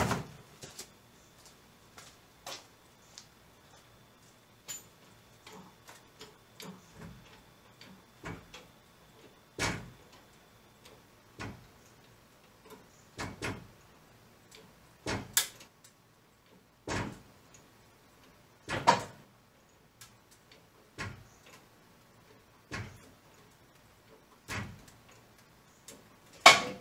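Scattered sharp knocks and clicks, about one every one to two seconds, with quiet between them; the loudest comes near the end.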